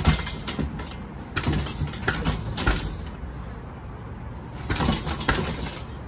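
Scuffling and clothing rustle of people grappling, in three bursts with a few sharp knocks mixed in.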